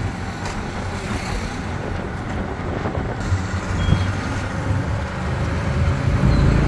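Auto rickshaw engine running steadily under way, heard from inside the open cabin along with road and passing-traffic noise. A brief high beep sounds about four seconds in.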